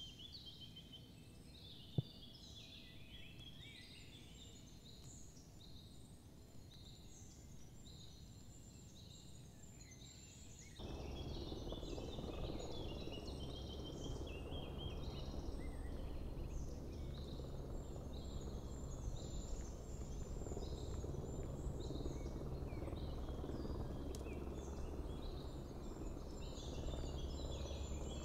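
Wild songbirds singing, a steady chorus of short chirps and trills. About eleven seconds in, a steady low rushing noise starts suddenly and stays.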